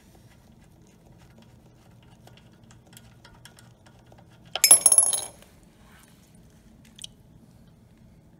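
Light clicks of hands and tools working at a small generator's carburetor. About halfway through comes one short, loud clatter with a metallic clink, lasting under a second, as the float bowl comes off over a plastic catch cup. A single small click follows a couple of seconds later.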